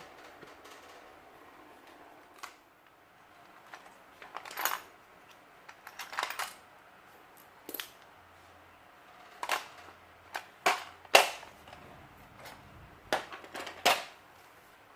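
Irregular sharp clicks and taps of small hand tools and parts against a Samsung Galaxy Note 9 smartphone being worked on for repair, about a dozen in all, the loudest around eleven seconds in.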